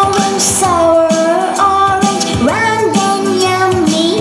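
Children's song about oranges playing: a sung melody of long held notes that slide between pitches, over a music backing.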